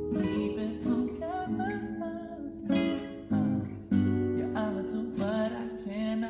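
A song on acoustic guitar, strummed, with a singing voice.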